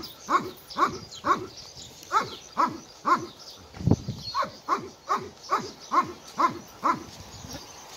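German Shepherd dog panting hard, short voiced breaths a little over two a second, each dropping in pitch; the panting stops about a second before the end.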